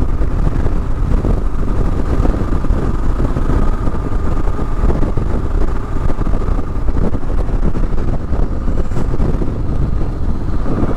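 2022 Kawasaki KLR 650's single-cylinder four-stroke engine running steadily while the bike is ridden, through a Lexx slip-on exhaust, with wind rush on the microphone.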